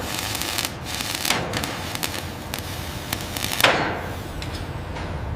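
Shipyard work sounds: a series of sharp knocks and thuds, about half a dozen, over a steady low rumble. The loudest comes about three and a half seconds in and rings on as it fades.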